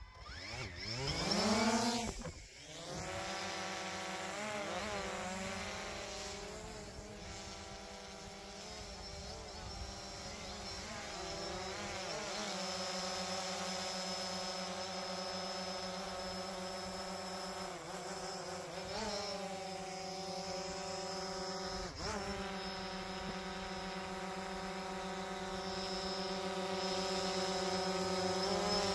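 Multi-rotor drone's motors and propellers spinning up with a rising whine, then a steady buzzing hum that wavers in pitch now and then as the drone flies. A single sharp click about 22 seconds in.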